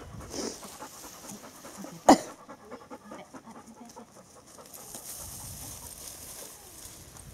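Bernese mountain dog panting, with one sharp, loud knock about two seconds in.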